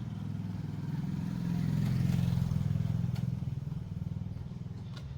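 A motor vehicle's engine running with a low, pulsing hum that grows louder to a peak about two seconds in, then fades.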